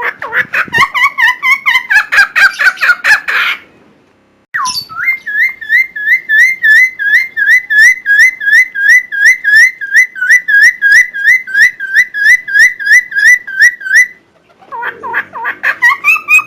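Cucak timor songbird singing loudly: a quick run of varied whistled notes, a short pause, then the same clear note repeated about four times a second for roughly ten seconds, breaking into varied notes again near the end.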